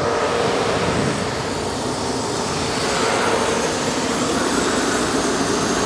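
Steady mechanical drone with a faint steady hum, like blower machinery running.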